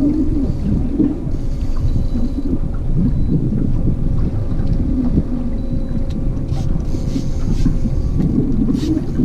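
Wind buffeting the microphone on an open fishing boat, a loud steady rumble, over the steady hum of the boat's motor.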